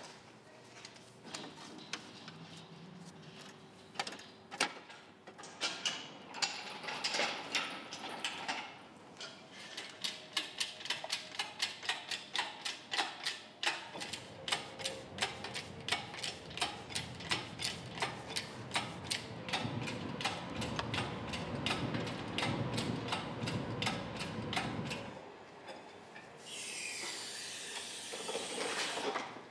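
Hand tools being worked in a car's engine bay: a long run of regular mechanical clicks, about three a second, like a ratchet being worked. Near the end, a steady hiss lasting a few seconds.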